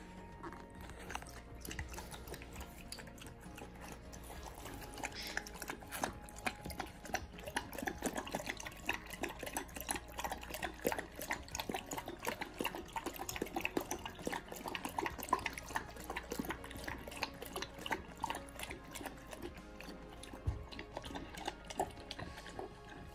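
Puppies, a German Shepherd and a Border Collie, lapping water from a plastic bowl: a quick, wet run of laps and small clicks that grows denser about five seconds in.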